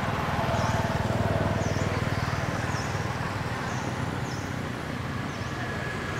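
Steady low outdoor rumble with a short high chirp repeating about once a second.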